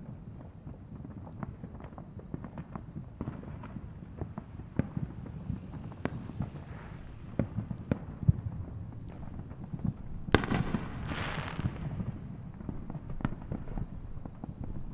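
Fireworks going off: scattered sharp pops and bangs over a low rumble, with a loud crackling burst about ten seconds in that lasts a second or so.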